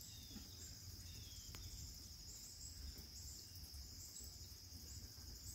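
Steady, high-pitched insect chorus, with a low rumble underneath and a single faint click about one and a half seconds in.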